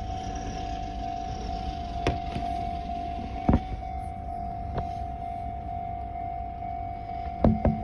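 Japanese railway level-crossing warning bell sounding as one steady, unbroken tone, over a low rumble of road traffic, with a few sharp knocks.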